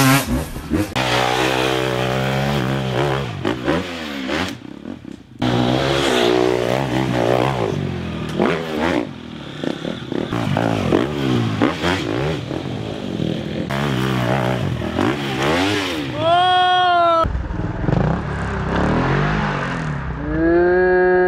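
Dirt bike engines revving hard, pitch sweeping up and down again and again under full throttle on a steep sand hill climb, breaking off abruptly several times. Near the end one engine rises and holds a high, steady rev.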